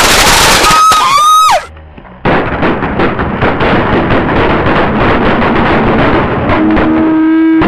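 Fireworks going off at close range. A loud hissing blast with a whistling shriek that bends downward is followed, after a short lull, by a long rapid crackle of firecrackers.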